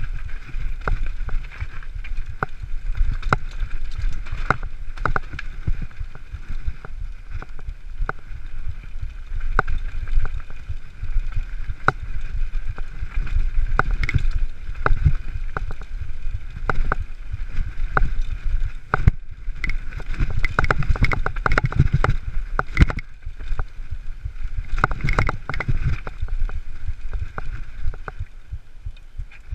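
Mountain bike riding fast down a rough, rocky dirt trail: a constant low rumble from the tyres and frame over the ground, with frequent sharp clacks and rattles as the bike hits rocks and roots. It eases off near the end as the trail smooths out.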